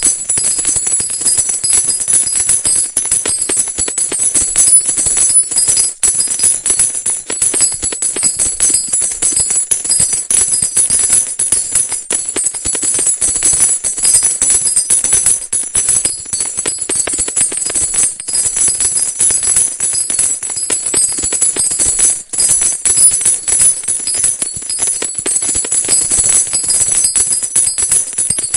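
Continuous, rapid metallic jingling without a break, loud and bright.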